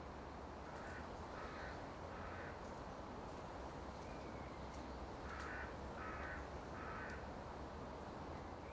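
A bird calling in two runs of three short calls each, about a second and about five seconds in, over a steady forest background hiss. A fainter, thin falling whistle comes between the two runs.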